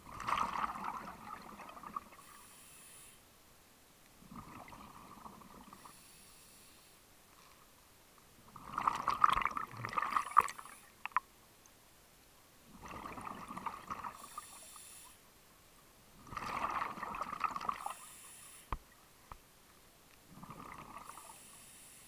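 Scuba diver breathing through a regulator underwater: six breaths about four seconds apart, each a second or two of burbling exhaled bubbles, with a short hiss of the regulator between them.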